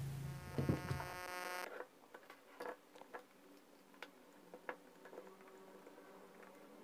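Faint, scattered clicks and taps of plastic parts being handled as a Makita heat gun's fan housing and heater tube are fitted back into its plastic body shell. For the first second and a half a steady buzzing hum is heard, and it cuts off suddenly.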